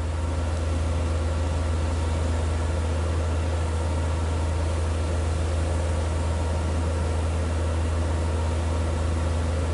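An engine running at a constant speed, giving a steady low hum that does not change.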